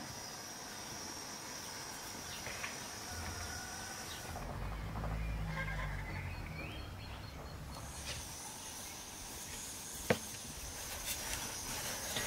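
Rural outdoor ambience: steady high-pitched insect chirring with a few faint bird chirps. For a few seconds in the middle the chirring drops out and a low hum takes over, and there is a single sharp knock about ten seconds in.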